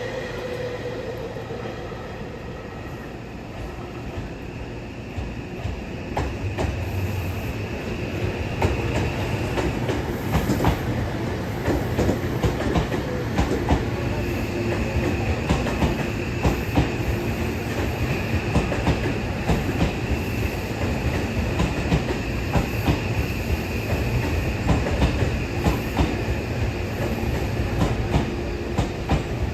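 Odakyu Romancecar GSE electric express train running, wheels clicking rhythmically over the rail joints under a steady rumble and a high, steady whine. It grows a little louder as the train picks up speed several seconds in.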